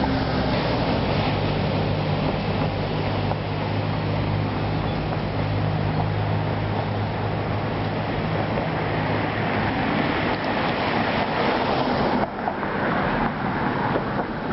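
Steady road-traffic noise: a constant rushing hiss with a low, steady vehicle hum that drops away about twelve seconds in. No siren wail is heard.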